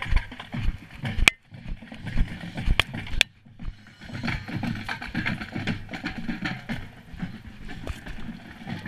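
Rumbling wind and handling noise on a body-worn camera's microphone as the wearer spins and moves fast, with a few sharp knocks about a second, nearly three seconds and three seconds in.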